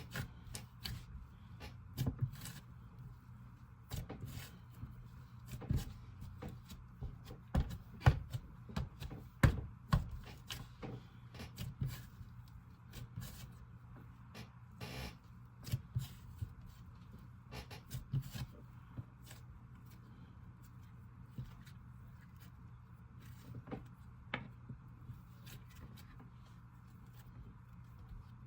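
Icy slime being kneaded together with soft clay by hand, making irregular small clicks and pops, busier in the first half, over a steady low hum.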